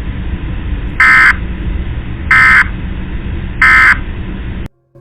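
Three short emergency alert system (SAME) end-of-message data bursts, harsh buzzes about a third of a second each and a little over a second apart, over a steady broadcast hiss. They signal the end of the alert. The audio cuts off near the end.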